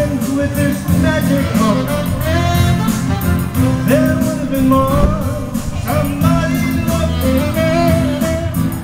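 A Hawaiian ballad performed live: a man singing to strummed acoustic guitar.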